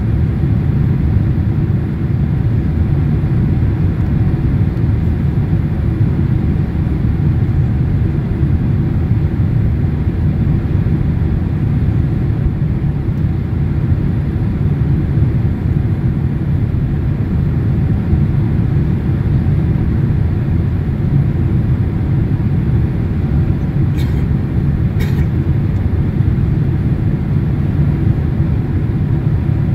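Steady cabin noise inside a Boeing 767-300ER airliner on final approach with its flaps extended: a deep, even rumble of the engines and airflow. Near the end, two brief faint clicks about a second apart.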